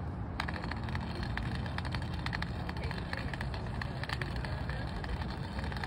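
Long white cane with a ball-shaped rolling tip sweeping across brick pavers, giving a rapid, irregular run of clicks and rattles as it runs over the joints, over a steady low background rumble.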